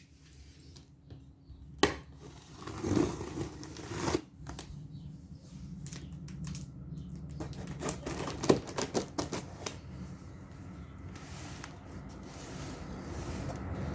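Cardboard box and packaging being handled and opened: irregular rustling, scraping and clicking, with sharp knocks about two seconds in and again past the middle.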